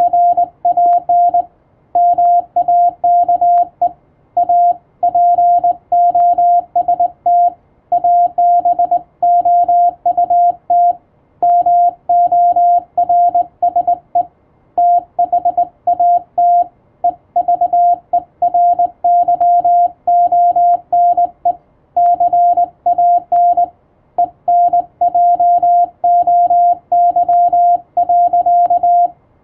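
Morse code (CW) tone at one steady pitch, keyed on and off in quick dots and dashes with short pauses between characters and words, over a faint low hum.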